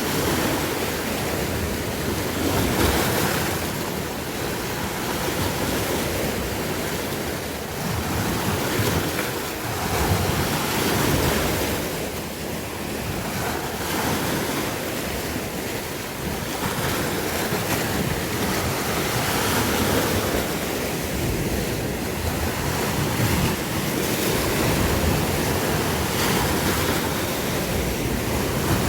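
Sea waves breaking and washing on the shore, the surf swelling and easing every few seconds, with wind on the microphone.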